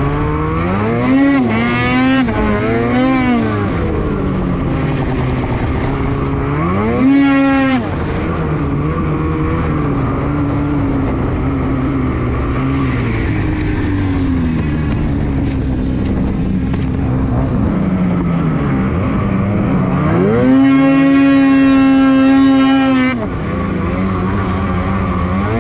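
Polaris Switchback Assault 850 snowmobile's two-stroke twin engine under throttle on the move. It revs up and down several times in the first few seconds, rises sharply about seven seconds in and cuts back, then holds a long high-rpm pull for about three seconds near the end before dropping off.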